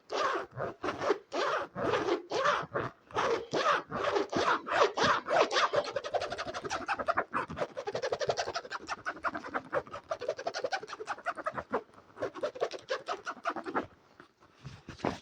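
Rhythmic scratching strokes for ASMR, about three a second at first, speeding up to a fast flurry midway and thinning out near the end.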